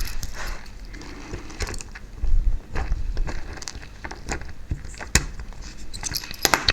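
Small clicks, taps and knocks of a plastic model locomotive body and its parts being handled and prised apart by hand, with a dull thump about two and a half seconds in and a quick run of clicks near the end.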